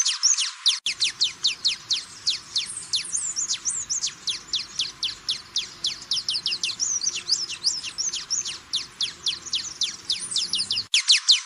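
Wine-throated hummingbird singing: a rapid, continuous run of thin, high chirps, several a second, each sliding down in pitch. A faint low hiss comes in about a second in and drops out near the end, where the recording is spliced.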